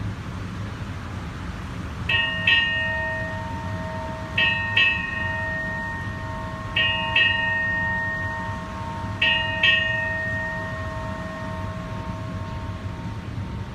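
Ship's bell struck eight times in four pairs (eight bells), marking 8 a.m. and the change of watch, heard over a ceiling loudspeaker. Each strike rings on and fades slowly, over a steady low hum.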